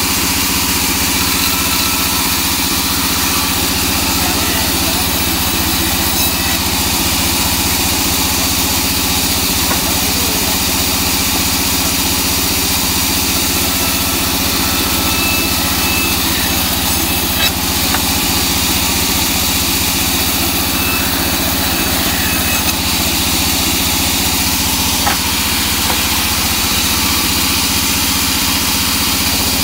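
Large vertical band saw running steadily while teak boards are ripped through its blade, with a couple of small knocks about two-thirds of the way in.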